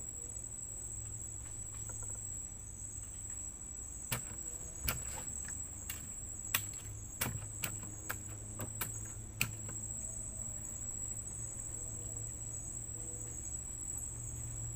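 Insects chirring steadily at a high pitch, over a low steady hum. From about four to nine and a half seconds in, a run of about ten sharp clicks or knocks.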